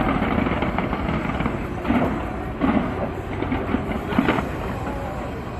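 Fireworks display: a steady rumble and crackle of shells going off, with heavier bursts about every second from two seconds in.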